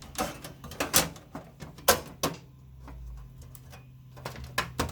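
A series of irregular sharp clicks and knocks as a hard drive bay is pushed and worked into a PC case, plastic and metal striking and catching; the loudest knocks come about one and two seconds in.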